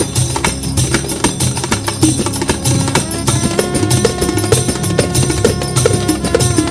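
Instrumental dance track with a steady, busy percussion beat; a held melody line comes in about three seconds in.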